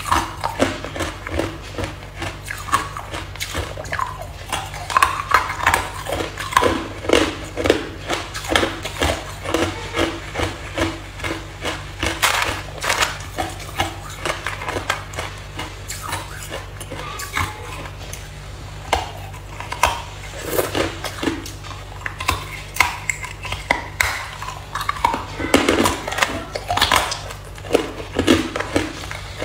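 Hard clear ice being bitten and crunched in the mouth: a continual run of sharp cracks and crackles, with a steady low hum beneath.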